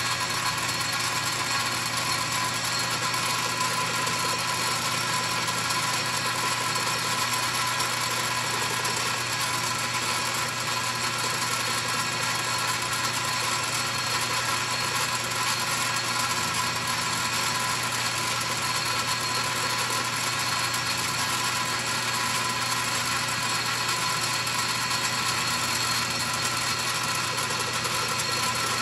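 Metal lathe running steadily, a constant hum with several steady whining tones over an even hiss.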